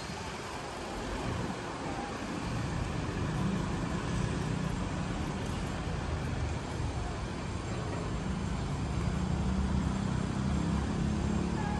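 Steady rumble of passing road traffic that swells after a couple of seconds and then holds.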